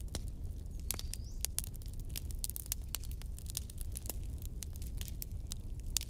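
Wood fire crackling: frequent irregular sharp snaps and pops over a steady low rumble, with a brief thin rising whistle about a second in.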